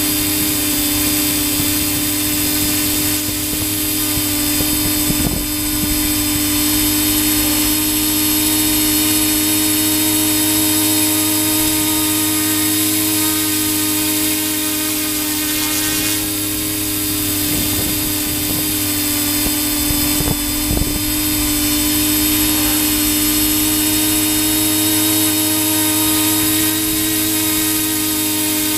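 Motors and propellers of a radio-controlled model aircraft heard through its onboard camera, running at a steady high whine with several even tones during a climb.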